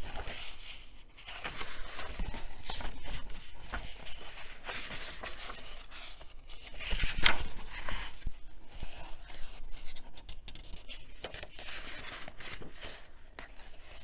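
Paper pages of a booklet being turned and handled by hand: dry rustling and page flips, loudest about seven seconds in.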